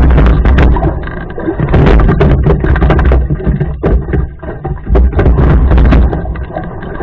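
Rowing boat under oar: loud surges of water noise and low rumble every two to three seconds with the stroke, with sharp knocks that fit the oars working in their oarlocks.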